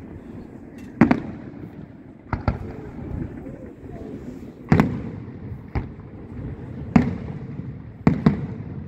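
Aerial firework shells bursting, about eight sharp bangs at irregular intervals, some in quick pairs, each trailing off briefly.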